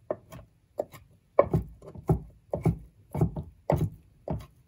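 Kitchen knife chopping cooked baby shrimp on an end-grain wooden cutting board: a steady run of short knocks, about two a second.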